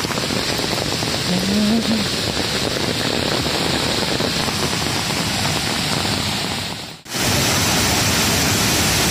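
Steady rush of a swollen mountain river in spate, mixed with rain falling. About seven seconds in the sound cuts out for an instant and comes back as a steadier rush of white water.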